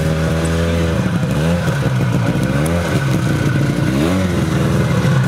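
Snowmobile engine running and being revved up and down three times, the pitch rising and falling with each rev.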